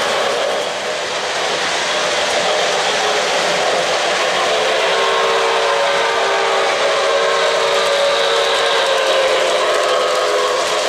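O-gauge three-rail model trains rolling along the track with a steady running rumble. About four and a half seconds in, a locomotive's electronic sound system sounds a long, steady chord of several notes that holds for about five seconds.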